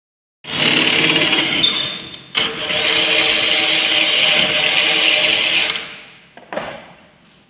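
Cordless drill drilling into a metal sliding-door frame to make the hole for a lock: a steady motor whine with a short break after about two seconds, then a longer run that winds down near the end. A short knock follows.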